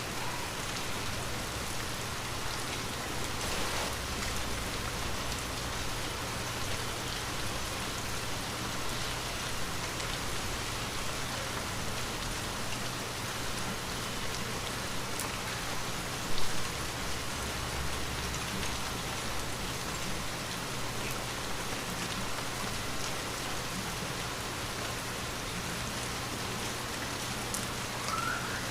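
Light rain falling steadily, with scattered drops ticking and one louder drop hit about halfway through.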